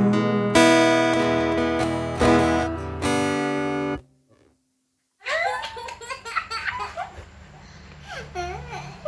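Yamaha F310 steel-string acoustic guitar strummed, a few chords ringing out. The sound cuts off suddenly about four seconds in. After a second of silence come voices with laughter.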